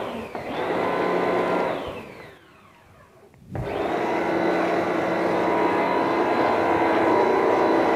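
Electric pressure washer motor running with a steady whine. About two seconds in it spins down and stops, and after about a second of quiet it starts up again with a knock and runs on steadily.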